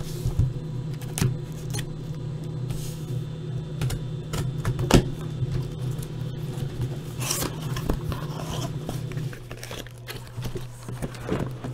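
Sealed cardboard case of trading-card boxes being cut and opened: a blade slicing the tape, cardboard flaps scraping and rustling, with scattered sharp clicks. A steady low hum runs underneath and drops off about nine seconds in.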